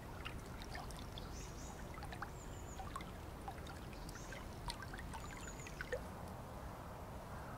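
A small forest stream trickling and gurgling, with a few brief high chirps over it. The trickling fades to a duller, steady hiss about six seconds in.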